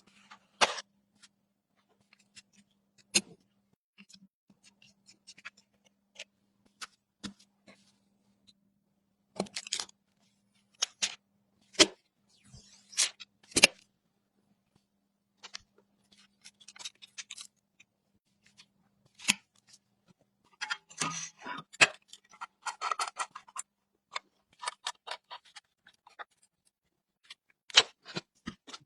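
Scattered sharp clicks, taps and small scrapes of computer parts and screws being handled and fitted while a small-form-factor PC is assembled, with a denser stretch of rustling and scraping about two-thirds of the way through. A faint low hum sits under the first two-thirds.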